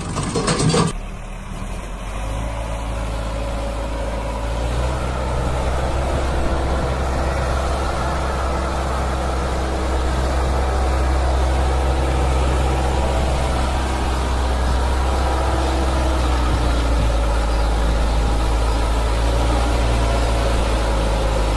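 Steady low, engine-like motor hum that grows a little louder about five seconds in.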